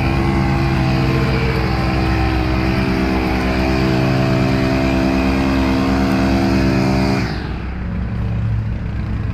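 Lawn mower engine running steadily at high throttle. About seven seconds in, its sound drops suddenly to a lower, quieter engine note that keeps running.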